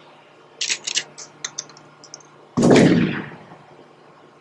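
Logo-intro sound effects: a quick run of sharp, high clicks that thin out, then a single loud hit about two and a half seconds in that dies away over about a second, over a faint steady low hum.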